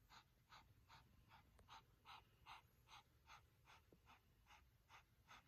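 Dog panting faintly and steadily, about two and a half short breaths a second.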